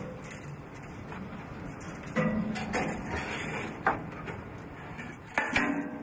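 Footsteps clanking on the steel stairs of a fire tower during a climb: irregular metallic knocks, with two louder clangs that ring briefly, about two seconds in and near the end.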